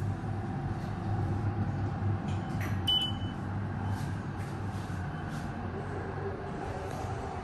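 Steady low hum and rumble inside a Mitsubishi lift car, with one short high-pitched beep about three seconds in.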